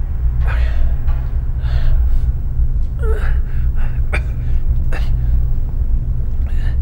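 Ragged, gasping breaths, about one a second, over a steady low rumbling drone.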